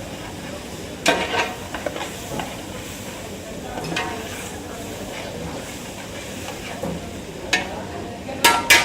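A metal ladle stirring and scraping a pot of sizzling masala over a steady frying hiss. Several sharp metallic clanks sound against the pot: one about a second in, more later, and the loudest pair near the end.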